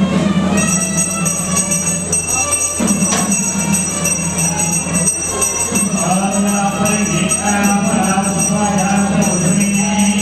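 A puja hand bell ringing continuously in a high, steady jangle, over a group of male voices chanting together in a low drone, during a Hindu abhishekam ritual.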